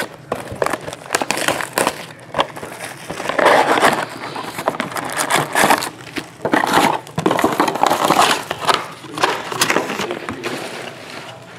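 Plastic shrink wrap being torn off a cardboard trading-card box and the box pulled open, crinkling and crackling in irregular bursts.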